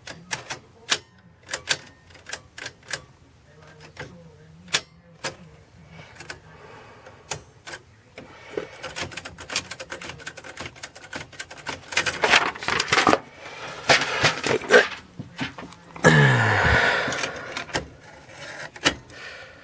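Royal manual typewriter being typed on: single key strikes clacking at an irregular pace, then a faster run of keystrokes, and near the end a longer sliding, ringing clatter.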